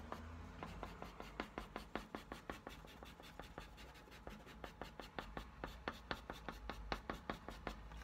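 Dry pastel stick scratching across drawing paper in quick short strokes, about five a second, hatching in feather marks; the strokes stop shortly before the end.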